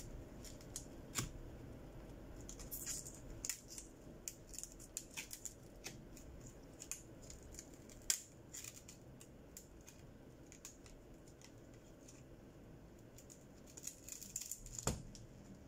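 Thin plastic opening card being slid along the edge of a heated phone screen to cut the adhesive: a string of small, sharp, scratchy clicks, busiest in the first few seconds and again near the end, with one louder click just before the end.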